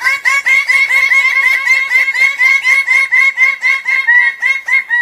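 A bird calling a rapid, even series of short, hooked notes, about five or six a second, held for the whole stretch.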